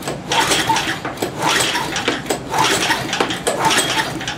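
Recoil starter of a 5 hp Tecumseh Snow King single-cylinder engine pulled four times in quick succession, about a second apart, the rope whirring as the engine turns over. It is being cranked with its spark plug out and a compression gauge in the plug hole, which reads only about 80 psi: low compression that the owner bets comes from a worn-out engine.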